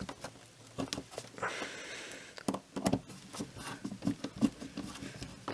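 Scattered small clicks, taps and knocks of parts being handled and pressed together while a fume extractor is assembled, with a short scraping rustle about one and a half seconds in.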